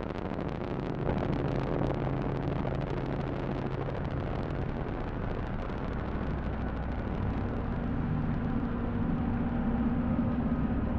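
Dark ambient drone music: a steady rumbling, hissing wash with low held tones, which shift to a new set of tones about halfway through.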